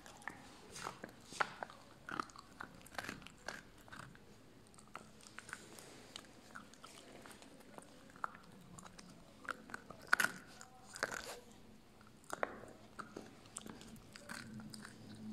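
A puppy gnawing and crunching on a big bone, with irregular sharp crunches and cracks; the loudest cluster comes about ten seconds in.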